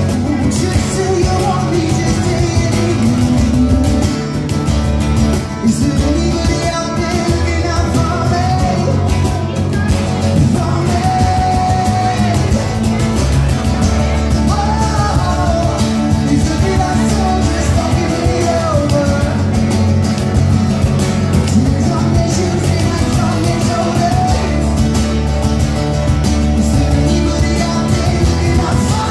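Acoustic rock band playing live: strummed acoustic guitars over a steady bass, with a wavering melody line above. The music is loud and steady.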